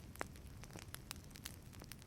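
Wood fire crackling in a fireplace: irregular sharp snaps and pops over a low rumble of flame.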